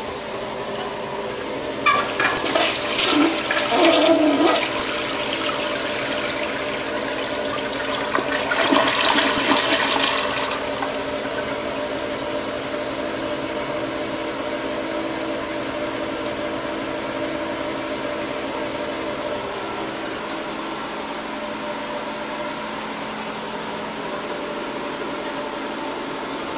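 Toilet flushing. Water rushes into the bowl suddenly about two seconds in and stays loud until about ten seconds in, then settles to a quieter steady run of water that eases off near twenty seconds in.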